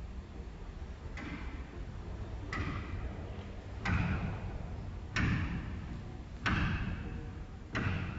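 Six sharp thuds, evenly spaced about every 1.3 seconds, each fading out over a steady low rumble.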